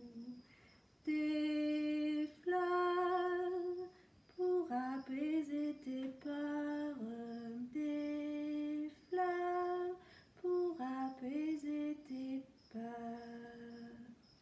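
A woman humming a lullaby tune, long held notes alternating with quicker runs of notes, the last note fainter.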